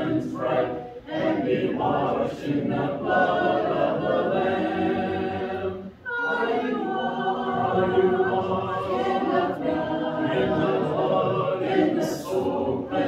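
Church congregation singing a hymn a cappella, many voices in held notes with no instruments; a short break between phrases about six seconds in.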